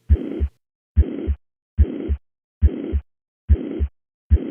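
Heart sounds heard through a stethoscope diaphragm at the cardiac apex: a regular beat a little under once a second, each with a low S1 and S2 thump and a high-pitched, even murmur filling the whole of systole between them. This is a holosystolic murmur, the murmur of mitral regurgitation.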